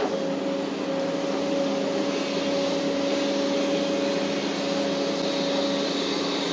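Hitachi 850LC excavator's engine and hydraulics running steadily as the bucket is worked, heard inside the cab: a constant drone with a steady whine over it.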